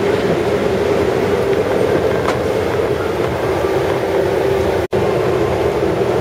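Steady airliner cabin noise: a constant rumble and rush of air with a steady hum in it, cut off for an instant about five seconds in.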